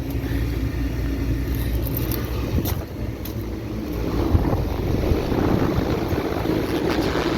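Trane Precedent packaged air conditioner running, a steady hum of compressor and condenser fan that grows somewhat louder about halfway through. It is running on continuously, not short-cycling.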